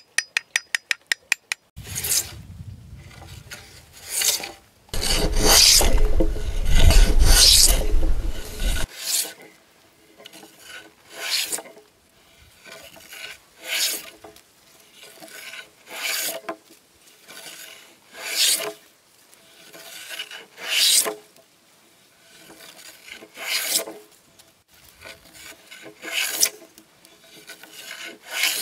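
A quick run of about eight light taps on a wooden hand plane to set its blade, then the plane shaving a timber beam in repeated swishing strokes, roughly one every second or two. The first strokes, a few seconds in, are the loudest and carry a low rumble.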